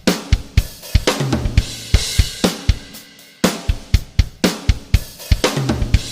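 Background music led by a drum kit: a steady beat of kick, snare and hi-hat hits under a bass line.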